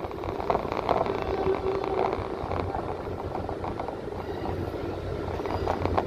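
Steady rumble of a moving vehicle heard from inside its cabin, with light rattles throughout.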